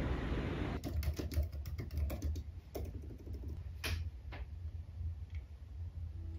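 Typing on a Mac laptop keyboard: rapid key clicks, dense for about three seconds and then thinning to a few scattered taps. It is preceded by under a second of steady rushing wind-and-rain noise.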